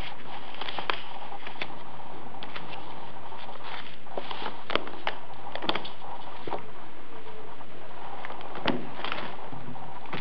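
Old book being handled: irregular crackles and clicks of its stiff paper pages and binding, over a steady hiss.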